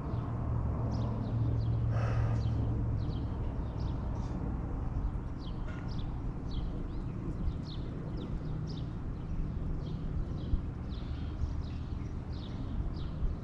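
Small birds chirping repeatedly in short, sharp calls over the low, steady hum of an idling engine.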